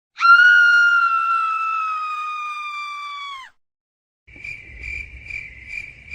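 A held, pitched sound effect with overtones, slowly sagging in pitch and fading before it drops off. About a second later comes the 'crickets' sound effect: even cricket chirps, a little over two a second.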